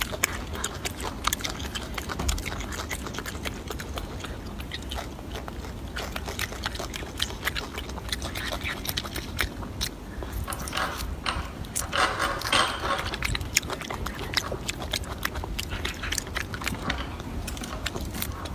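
Golden snub-nosed monkey biting and chewing a piece of fruit close up: many small irregular clicks of biting and mastication, louder for a couple of seconds about twelve seconds in.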